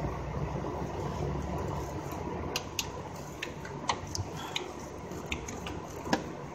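Metal hand tool clicking and tapping against engine parts as a fastener is worked loose by hand. A few sharp, irregular clicks start about two and a half seconds in, over a steady low hum.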